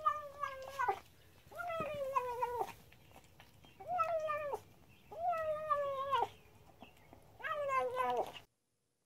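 A ginger cat giving drawn-out, wailing meows while it eats, five in a row about a second apart, each about a second long and dropping in pitch at the end.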